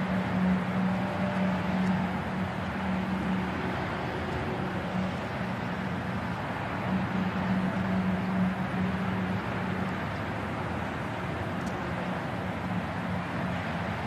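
Urban park ambience: a steady wash of distant road traffic, with a low steady hum that fades in and out.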